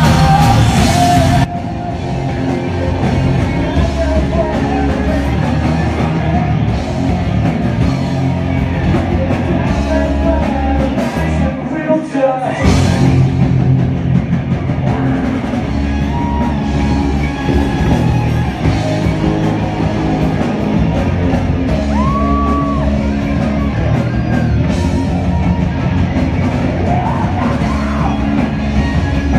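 Live rock band playing loud: electric guitar and drum kit with a male singer at the microphone, broken by a short pause about twelve seconds in.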